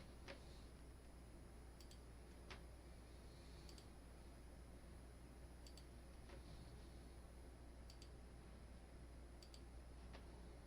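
Near silence with faint, short clicks, mostly in pairs about every two seconds with a few single clicks between them, over a low steady hum.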